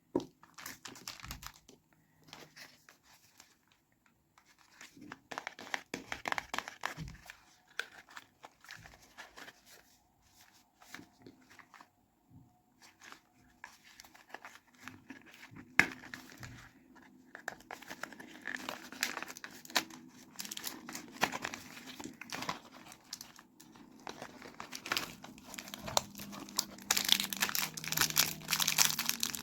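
Soap packaging being handled and opened: paper and plastic wrapping crinkling and tearing, with bursts of crackling that grow busier and louder in the second half and one sharp snap about halfway through.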